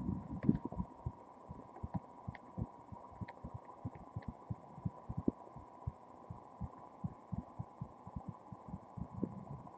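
Dull thumps of fingers tapping on the body, picked up through flesh and bone by a webcam microphone pressed against it. The taps come irregularly, several a second, with a few sharper clicks in the first half and a faint steady tone underneath.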